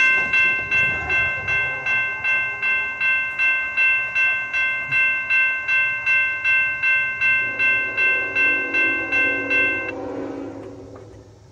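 Railroad grade-crossing warning bell ringing at a steady pace of about three strokes a second, warning that a train is approaching. It stops near the end.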